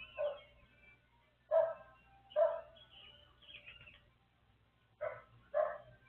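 A dog barking five times in short single barks, two near the start, two in the middle stretch and a quick pair near the end. Small birds chirp faintly behind it.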